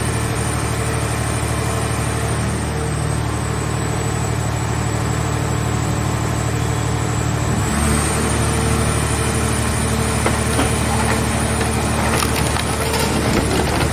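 A hydraulic car-body baler's power unit running steadily; about eight seconds in, its note shifts as the press takes load, and then a car shell crackles and creaks as it is crushed.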